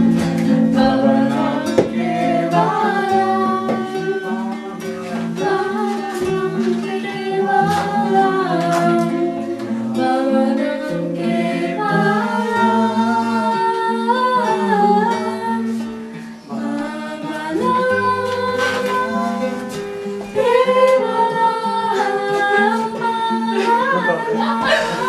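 Singing accompanied by a strummed acoustic guitar, a flowing melody over steady chords.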